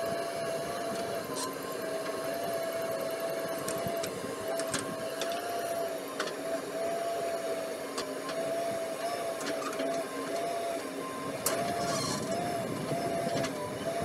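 JCB backhoe loader working its backhoe arm: the engine runs steadily under load with a constant high hydraulic whine that dips slightly now and then, and scattered sharp clacks as the bucket digs into soil and stones.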